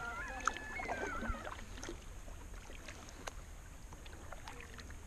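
Kayak paddling on calm water: light splashes and drips from the paddle with small knocks, over a low wind rumble on the microphone.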